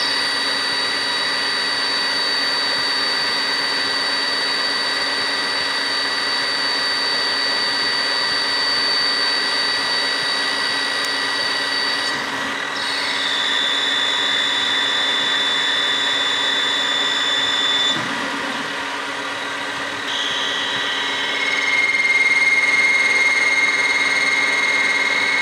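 Metal lathe turning a stainless steel bar on a deep roughing pass, the cut ringing with steady high-pitched tones that shift pitch a few times along the pass. This is chatter, which the machinist puts down to cutting too deep and the work losing rigidity.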